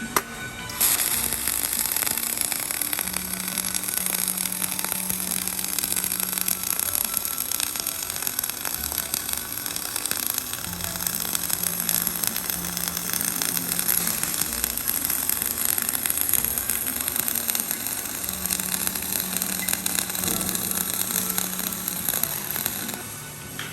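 Electric arc welding: a steady, dense hiss that starts about a second in, runs for some twenty seconds and stops just before the end.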